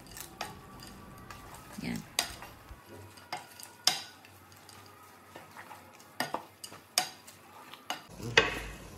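Wooden spatula stirring and tossing noodles in a metal cooking pot, with irregular knocks and scrapes of the spatula against the pot's side.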